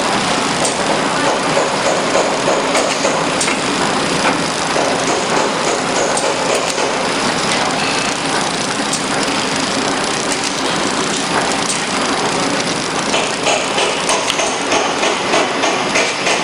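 Horizontal flow-wrap packaging machine running steadily: a dense mechanical clatter from its drives and conveyor, with scattered light clicks and a faster pulsing rattle near the end.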